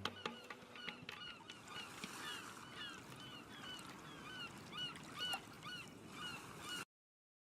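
Birds calling over and over in short, curved calls, against a faint steady outdoor hiss. The sound cuts off suddenly near the end.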